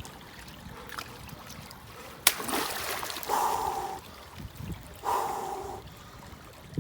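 Boots squelching and sucking in deep wet mud as they are pulled out of a bog, with a sharp knock about two seconds in.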